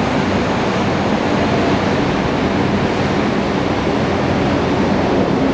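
Steady rumbling railway and traffic noise with a low, even engine hum running beneath it.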